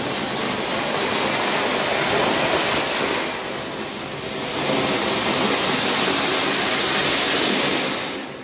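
Anar (flower pot) firework spraying a fountain of sparks with a loud, steady rushing hiss. The hiss eases briefly around the middle, surges again, and dies away near the end.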